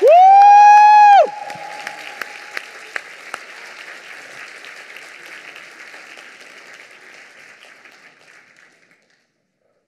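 Audience applause, opened by a loud held cry from one voice that rises, holds for about a second and drops away. The clapping then thins out and fades over several seconds until it stops.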